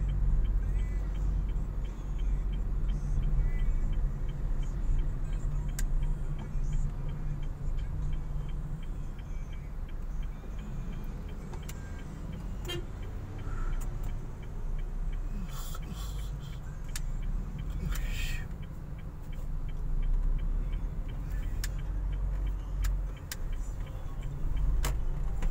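Steady low rumble of a 2021 Honda Mobilio's engine and tyres, heard from inside the cabin while driving in city traffic.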